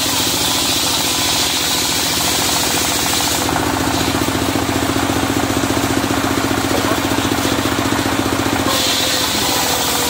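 The engine of a portable circular sawmill, running steadily with a fast, even knocking beat and driving the saw blade through red sengon wood. The sound shifts for about five seconds in the middle, starting about three and a half seconds in.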